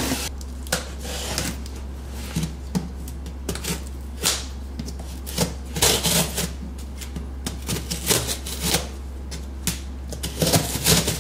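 A taped cardboard shipping box being handled and opened, with irregular clicks, scrapes and rustles of cardboard and tape. A steady low hum runs underneath.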